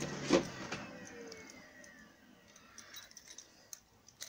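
A drill motor winding down with a falling whine after boring a hole in plasterboard, with two sharp knocks near the start. Near the end come faint light metallic clicks as a hollow wall anchor is handled.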